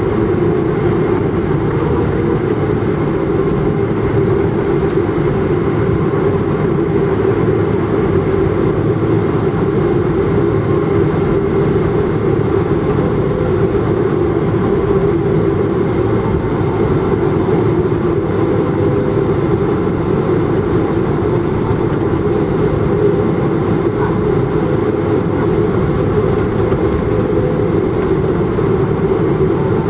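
Steady drone of a Boeing 777-200's jet engines and rushing air heard inside the cabin, unchanging and loud, as the airliner rolls along the ground after landing.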